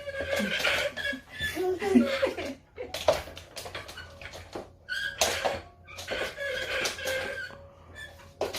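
A toddler babbling and giggling, with repeated sharp clicks and clatter from a plastic toy.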